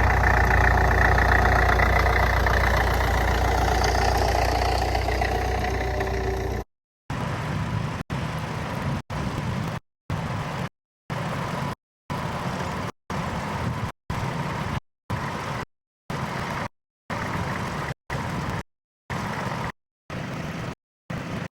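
Tractor engine running steadily with a deep rumble. After about seven seconds the sound keeps cutting out in short silent gaps roughly once a second, dropouts in the old recording.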